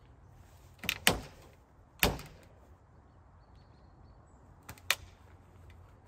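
Wooden swing-set beam cracking and knocking under a man's full hanging, swinging weight on a paracord line; the beam splits a little. Sharp knocks come about a second in, the loudest of them, then a heavy one at two seconds with a short ring-out, and two more near the end.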